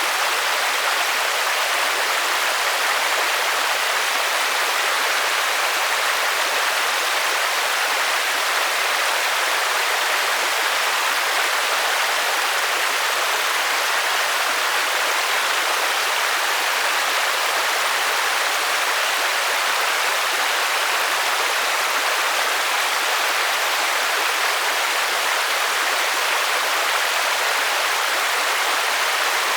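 Steady rain as a dense, even hiss with no separate drops standing out, mostly high and light with little low rumble.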